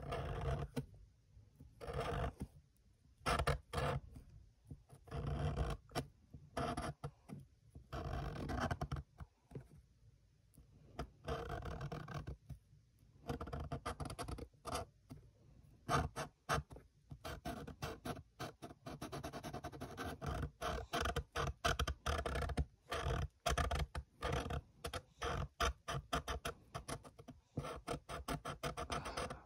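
Black marker drawing on paper: short, irregular scratchy strokes with pauses between them, coming quicker and closer together in the second half.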